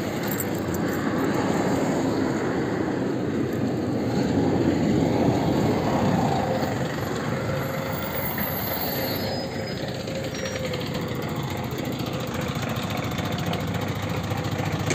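A PAZ 320405-04 city bus and passing street traffic. The noise swells to its loudest about halfway through as the bus pulls up to the stop, then settles into the steadier hum of the bus standing at idle.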